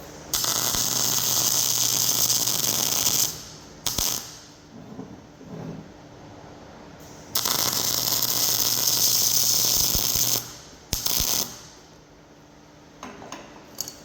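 MIG welder arc crackling as it lays weld on steel plate: two runs of about three seconds each, with a short blip after each.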